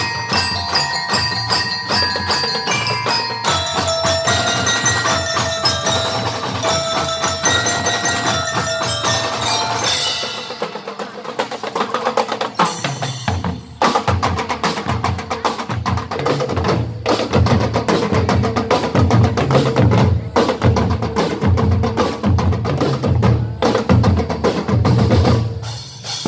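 Drum and lyre band playing: bell lyres ring out a melody for the first ten seconds or so, then about thirteen seconds in the drum section comes in with a steady, heavy beat.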